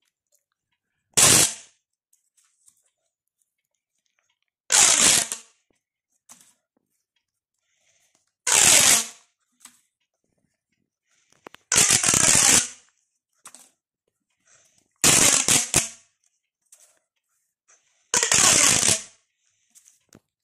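Corrugated plastic pop tube toys stretched out one after another, each giving a quick rattling burst of popping clicks as its ribs snap open. Six bursts come about three to four seconds apart.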